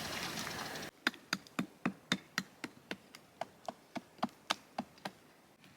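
A steady rushing noise cuts off abruptly under a second in. It is followed by a quick, even run of sharp taps, about four a second, for some four and a half seconds.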